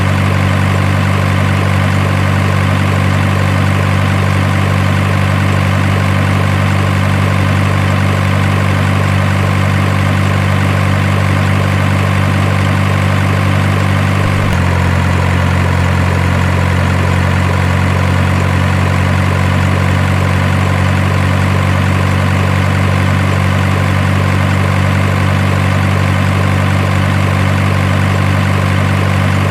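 Low, steady engine idling drone that shifts abruptly in pitch about halfway through.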